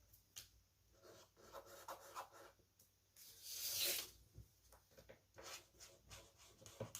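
Marker drawing lines on paper in a series of short, faint strokes, with one longer, louder stroke about three to four seconds in.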